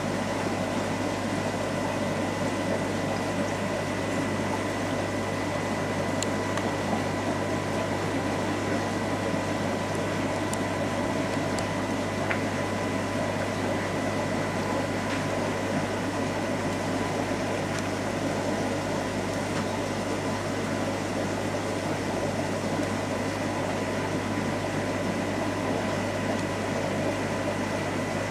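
Aquarium filter or pump running: a steady mains hum with a constant watery bubbling and a thin, steady whine.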